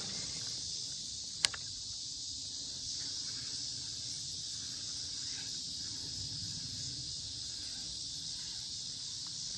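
Steady high-pitched chorus of insects, with a single sharp click about one and a half seconds in.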